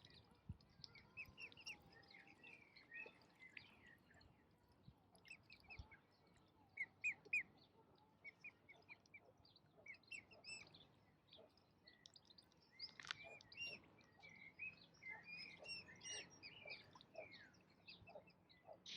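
Birds chirping and calling in quick, short, high notes, faintly and without a break, with a louder pair of chirps about seven seconds in.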